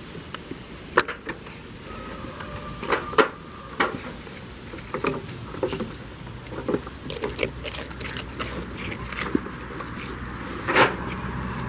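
Goats biting and chewing dry biscuits held out by hand: irregular sharp crunches and crackles, a few of them loud.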